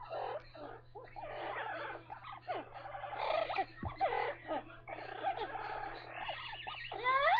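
Amazon parrots chattering and squawking in a continuous run of warbling, gliding calls, with a sharp rising call near the end; the birds are excited.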